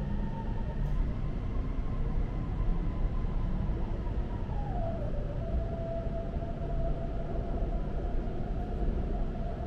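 Guangzhou Metro Line 18 train heard from inside the carriage while it runs through the tunnel: a steady deep rumble and hiss, with a thin whine that glides down in pitch about five seconds in and then holds.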